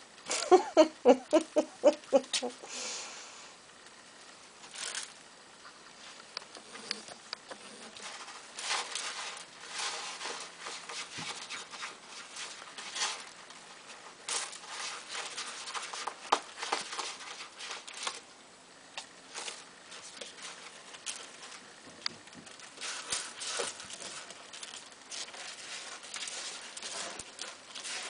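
Kittens scrambling, digging and pawing in granular cat litter in a plastic litter box: scattered scratching, rustling and rattling of litter. Near the start, a short, loud run of quick, rhythmic pitched sounds, about four a second.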